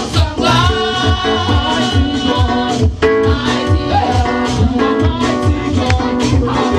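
Live gospel praise and worship music: several singers on microphones singing over instrumental backing with a steady beat.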